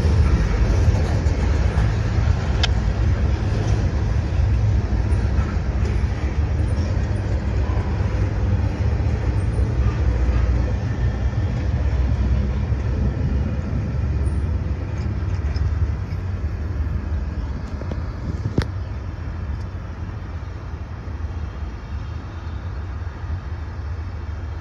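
Freight cars rolling past on the rails: a steady low rumble of wheels on track that slowly fades as the train moves away, with two sharp metallic clicks, one early on and one near the end.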